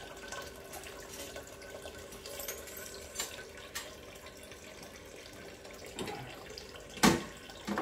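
Kitchen tap water running into a stainless steel sink, with a few light clinks and one sharp clatter about seven seconds in as a washed spoon is dropped into a plastic dish rack.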